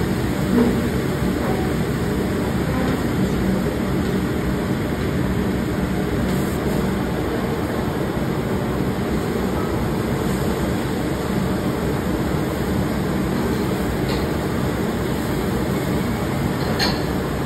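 Steady low rumble of the kitchen machinery around a round Mongolian barbecue griddle, with a few faint clicks of the cooks' long sticks on the griddle near the end.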